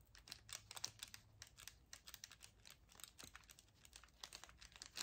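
Faint scratching of a Derwent drawing pencil scribbled back and forth on sketchbook paper, a quick irregular run of small scratchy strokes as a colour swatch is filled in.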